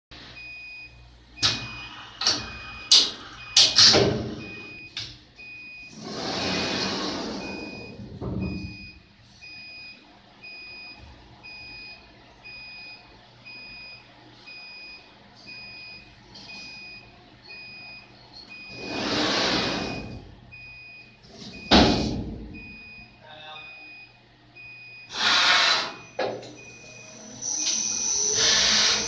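CNC wheel lathe setting up and starting: the machine beeps steadily, about two beeps a second, through clicks and knocks, two long hisses and one sharp bang as the alloy wheel is clamped. Near the end the spindle starts and the wheel spins up with a rising whine.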